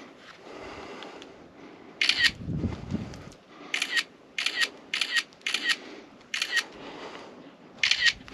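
Camera shutter clicking about seven times at uneven intervals as a series of photos is taken, with a brief low rustle about two and a half seconds in.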